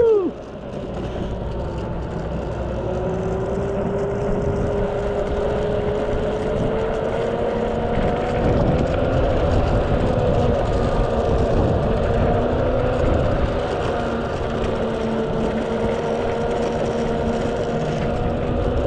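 Single belt-drive motor of a Mototec 600W electric skateboard whining under way, its pitch rising slowly over the first several seconds and then holding nearly steady. Under it is a constant rumble of the wheels on cracked asphalt, with wind on the microphone. A short, loud squeak falling quickly in pitch comes right at the start.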